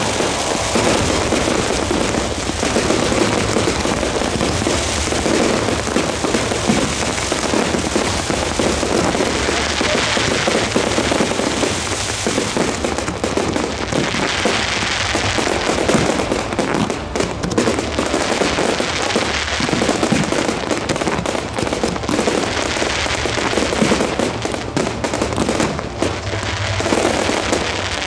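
Aerial fireworks display at full barrage: many shells bursting in rapid succession, in a dense, unbroken run of bangs and crackles.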